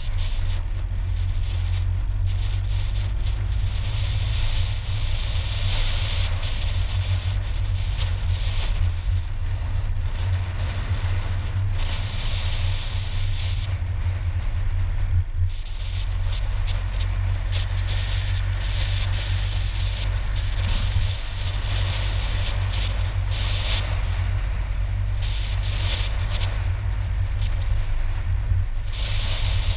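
A car driving steadily at road speed: a continuous low rumble of engine and tyres, with wind noise over it.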